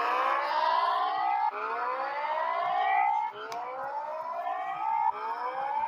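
Emergency-alert siren tone: a rising wail that sweeps up in pitch over just under two seconds, then drops back abruptly and sweeps up again, over and over.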